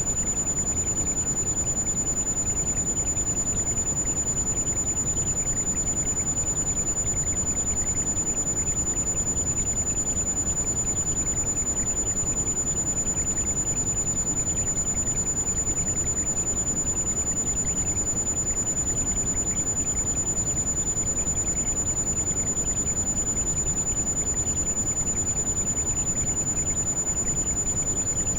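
Heavy rain falling steadily, with a constant high-pitched pure tone mixed in over it as a tinnitus-like ringing.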